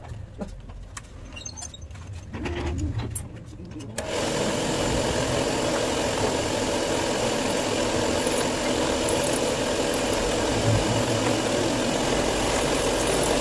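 Light clicks, then a milling machine starts running abruptly about four seconds in and holds steady, its end mill cutting an aluminium motorcycle cylinder head.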